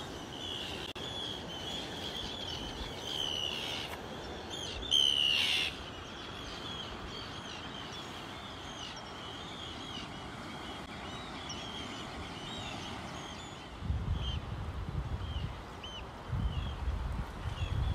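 Birds calling over and over in short chirps, with one louder burst about five seconds in. In the last few seconds wind buffets the microphone in gusts.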